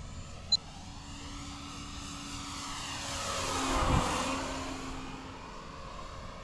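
Radio-controlled Seagull Models Cessna 208 Grand Caravan scale model making a low flyby: the motor and propeller drone builds to a peak about four seconds in as it passes close, then fades, the pitch dropping as it goes by. A short sharp click about half a second in.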